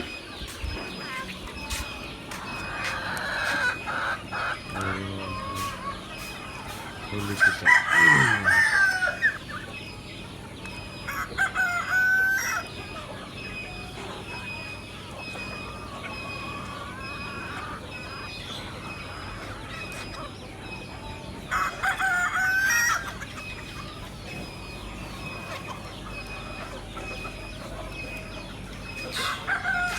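A flock of Hilli chickens clucking, with roosters crowing several times; the loudest crow comes about eight seconds in and falls off at the end.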